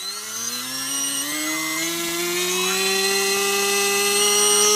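Xhover 2204 2300KV brushless drone motor spinning a Gemfan 5030 propeller on a thrust stand, its whine rising slowly in pitch as the throttle is turned up. It levels off near the end at hover thrust.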